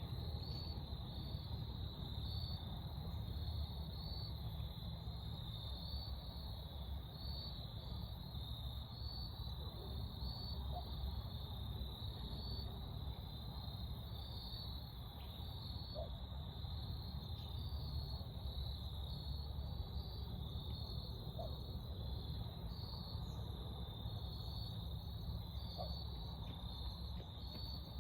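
A steady, high insect chorus, pulsing slightly, over a low outdoor rumble.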